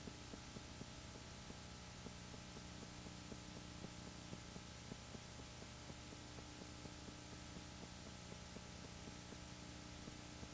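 Super-8 film projector running: a faint steady hum with light ticks a few times a second.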